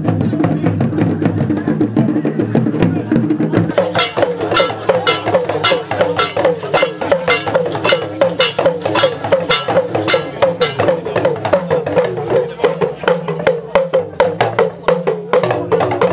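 Traditional village drumming: hand drums and other percussion beating a fast, even rhythm, with voices under it. About four seconds in, the sound changes to a brighter beat with sharp clicking strikes and a hissy rattle on top, which fades out near the end.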